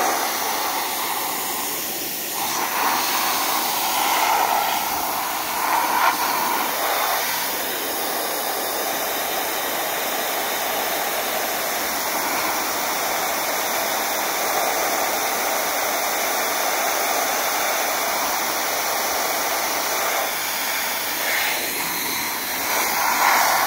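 Compressed-air spray gun hissing steadily as it sprays a phosphate coating solution onto sandblasted metal, swelling a little louder a few times.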